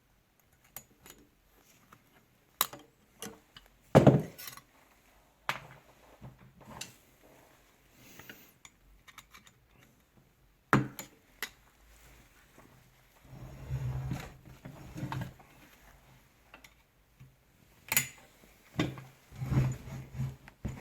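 Metal hand tools clicking, clinking and knocking against the rotary hammer's steel parts while a retaining ring is worked off the jack-compressed spring assembly. The knocks are scattered and irregular, the loudest about four seconds in, with some rubbing and handling noise between them.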